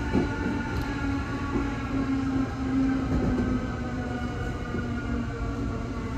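Kintetsu 1021 series electric train heard from inside the cab, its motors whining with a slowly falling pitch as it slows into a station, over steady wheel and rail noise.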